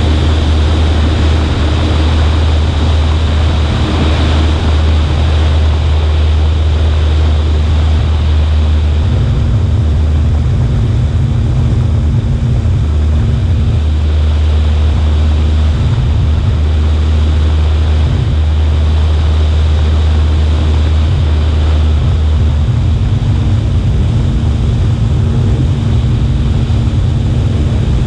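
Cessna 140A's piston engine and propeller droning steadily in flight, under a heavy rush of wind. The low hum turns uneven for a few seconds at a time, about a third of the way in and again near the end.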